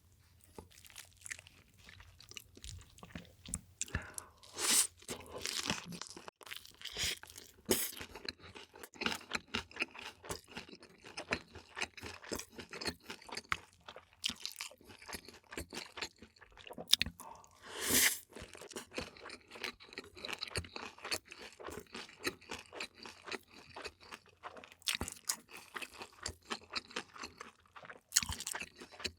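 A person chewing and crunching food close to the microphone: a dense run of small, irregular crunches, with louder ones about five seconds in and about eighteen seconds in.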